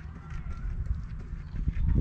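Noise on a chest-worn camera's microphone: an irregular low rumble with scattered knocks, swelling louder near the end.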